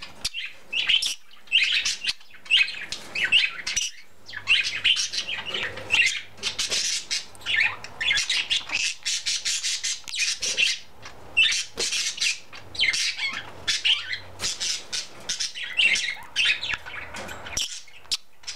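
Pet birds chattering: a green-cheeked conure and budgies chirping, warbling and squawking in a steady stream of short calls.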